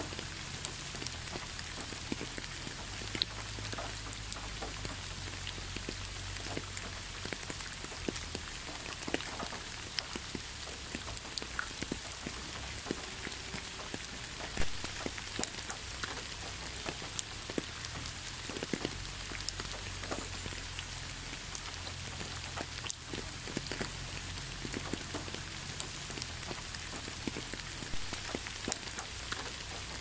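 Waterfall splashing steadily: a constant hiss of falling water, dotted throughout with many small splashes and drips.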